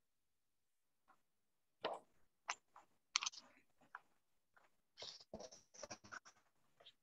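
Near silence broken by scattered faint clicks and taps, a few at a time, most of them clustered about two, three and five to six seconds in.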